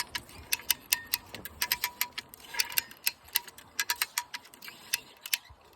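Ratcheting cable puller clicking as it is cranked, several sharp clicks a second in uneven runs, drawing high-tensile support wire tight.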